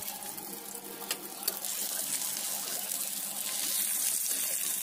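Rohu fish pieces sizzling steadily as they fry in hot oil in a pan, with two light clicks of the spatula against the pan about a second in.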